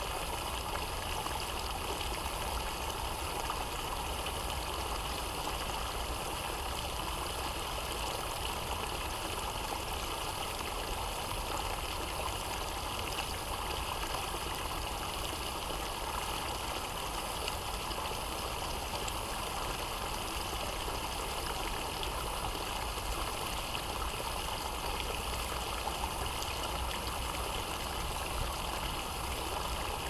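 Small woodland brook babbling steadily as it spills over a low step among fallen leaves.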